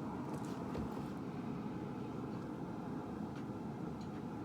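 A forge running with a steady low rushing noise, and no hammer blows.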